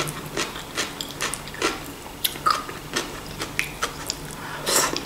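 Eating sounds: a fork scooping stewed zucchini-and-vegetable ragout on a plate, then chewing a mouthful, with a run of short wet mouth clicks and smacks.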